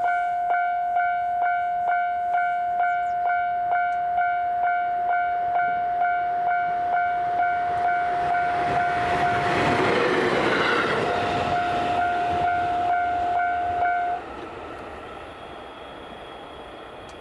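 Japanese level-crossing warning bell ringing about twice a second while a train passes over the crossing, its noise swelling to a peak about ten seconds in. The bell stops abruptly about fourteen seconds in, leaving a fainter steady background with a thin high tone.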